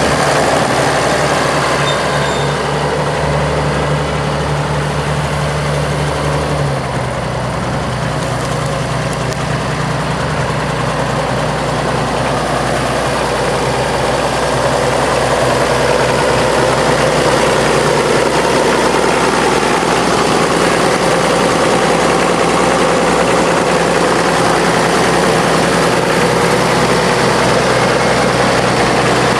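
1958 Oliver 880 tractor's six-cylinder diesel engine running steadily at low speed, its note changing about seven seconds in.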